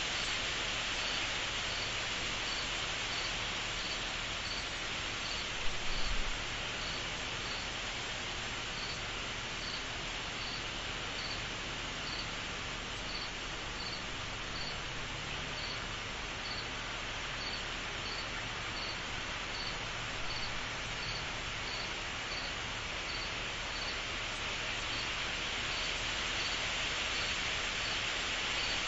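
Steady chorus of insects making a dense high hiss, with one cricket chirping at an even, slow pace of about three chirps every two seconds. A brief low thump about six seconds in.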